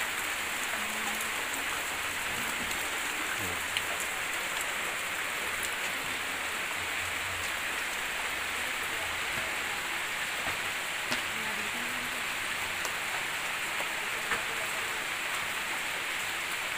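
Heavy rain falling steadily, an even hiss, with a few sharp clicks about 4, 11 and 14 seconds in.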